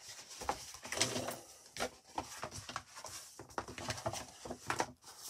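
Sheets of card file folder being handled and laid out flat on a cutting mat: irregular rustles, slides and light taps of card.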